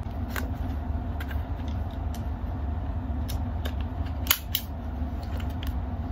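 Irregular small plastic clicks and taps from a clear handheld plastic stationery tool being worked on a paper flashcard, with one sharper click a little over four seconds in. A steady low hum runs underneath.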